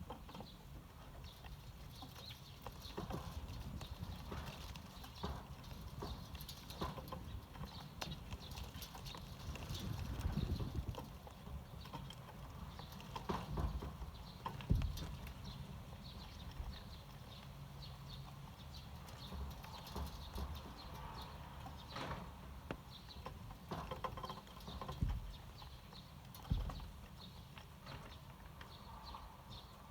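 Eurasian tree sparrows foraging, making scattered light taps and clicks as they peck and hop about, over a low rumble.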